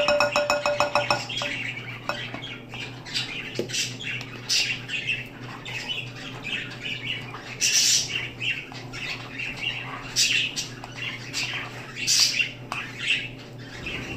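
Metal spoon scraping and clinking against a glass bowl as glitter-glue slime is stirred, in irregular strokes. For about the first second, a squeezed glue bottle sputters with a rapid buzzing pulse.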